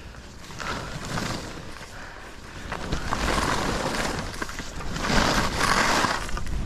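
Skis sliding through snow, with wind rushing over the microphone, growing louder about three seconds in and again about five seconds in.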